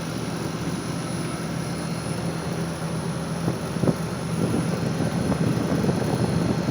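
Gree GMV5 VRF outdoor unit running under gas charge: a steady hum of the compressors and condenser fan, with a few brief knocks about halfway through.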